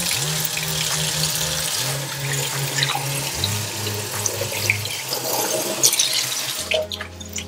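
Kitchen faucet running into the sink, a steady hiss of water that is shut off near the end. Background music with a low bass line plays underneath.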